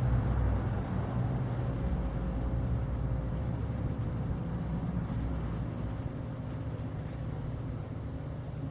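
A Federal Signal 2001-130 siren winding down, heard as a faint steady high tone sinking very slowly in pitch, under a low steady rumble.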